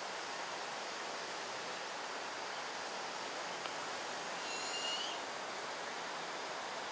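Buffy fish owl fledgling giving one thin, high-pitched begging call, under a second long, about four and a half seconds in, over a steady background hiss. It is the food-begging call of a young owl waiting to be fed.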